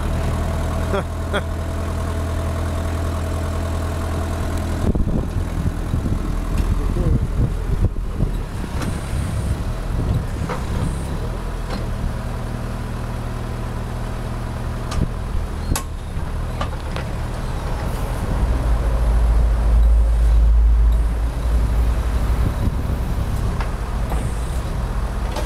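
JCB 1CX backhoe loader's Perkins 404D four-cylinder diesel engine running, its pitch shifting as the machine manoeuvres and works its hydraulics. The low drone grows louder for a few seconds about three-quarters of the way through.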